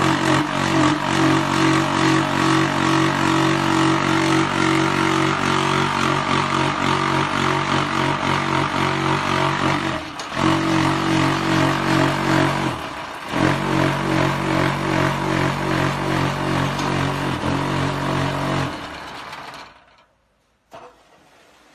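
Electric vibration motor on a QT4-40 block-making machine running, shaking the steel mould frame with a loud, steady hum and a dense rattle as it compacts concrete into a curbstone. It cuts out briefly twice, around the middle, then winds down and stops near the end, followed by a single knock.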